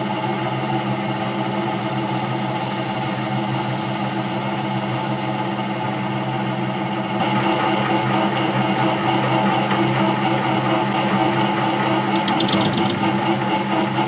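Metal lathe running a finishing pass at about 500 rpm, its motor and drive humming steadily with a faint high whine, while the cutter peels the plastic of a washing-machine drum bearing hub. About halfway through the cutting noise grows louder and brighter.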